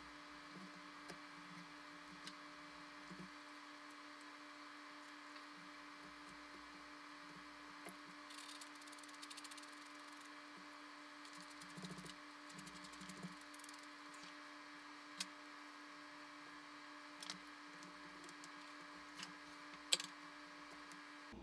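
Faint hand work at a workbench over a steady low hum: two short stretches of quick, fine scratching, and a few scattered light clicks and taps, the sharpest near the end.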